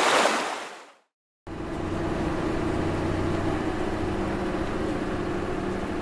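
Rushing water fades out in the first second; after a short silence, a cargo ship's engine starts up as a steady low drone over the wash of the sea.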